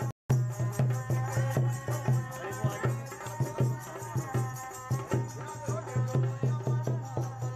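Background music with a quick, even percussion beat, about six strokes a second, over a steady low drone; it cuts out for a moment right at the start.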